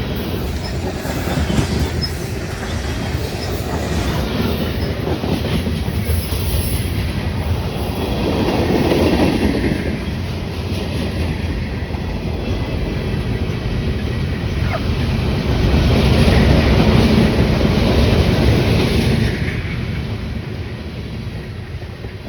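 Freight train cars rolling past, a steady rumble and clatter of steel wheels on the rails. It swells louder twice and eases off near the end.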